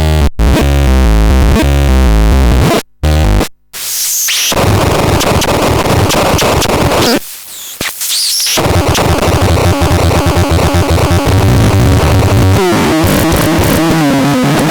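Excrementon 320 electronic noise instrument playing. For the first few seconds it steps through a sequence of pitched electronic tones, cut by two brief dropouts. It then turns to a harsh wall of noise with sweeping high whistles, which thins out for about a second around the middle before dense, glitchy noise with wavering tones returns.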